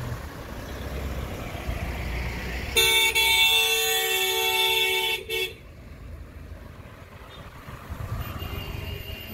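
A vehicle horn blares for about two and a half seconds over the low, steady rumble of a moving vehicle.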